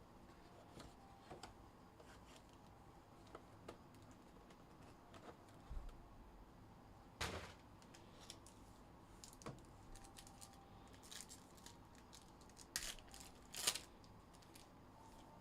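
Faint, scattered clicks and crinkles of trading-card packaging being opened and cards handled, with a few sharper clicks near the middle and towards the end.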